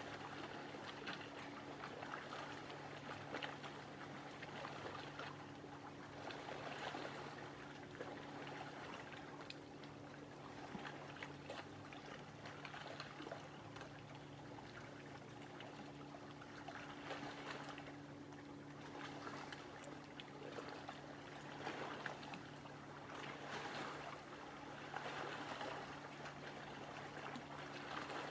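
Small lake waves lapping at the water's edge: a steady soft wash with little splashes, swelling every few seconds. A faint steady low hum runs underneath.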